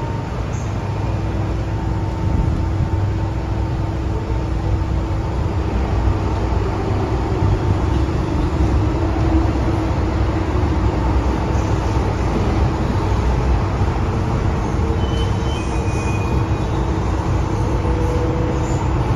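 MTR Modernised Train (Metro-Cammell DC electric multiple unit) heard from inside the passenger car while running: a steady rumble of wheels on rail and running gear with a faint low hum over it.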